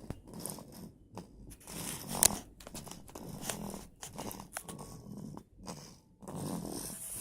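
Snoring breaths from someone asleep after a bottle feed: a rasping breath about every second, with a few sharp clicks, the loudest about two seconds in.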